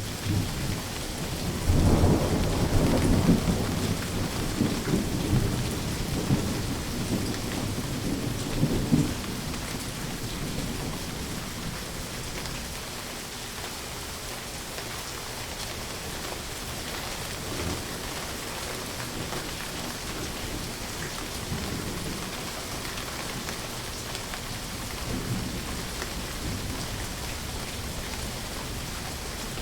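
Steady heavy rain with rolling thunder: a loud rumble about two seconds in that rolls on for some seven seconds before fading, then fainter distant rumbles later under the constant rain.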